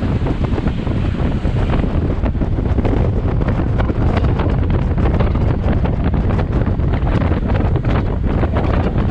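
Wind buffeting the microphone: a loud, steady rumble with constant crackling gusts.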